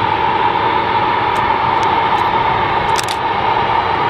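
Airbus A220-300 with its Pratt & Whitney PW1500G geared turbofans running, a loud steady rush of jet noise with a constant high hum over it. There is a brief crackle about three seconds in.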